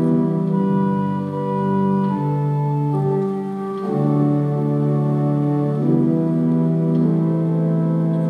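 Organ playing slow, held chords that change every second or two.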